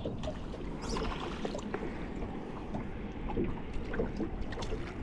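Small waves lapping and trickling against the hull of a drifting boat, a steady low wash broken by scattered small splashes and knocks.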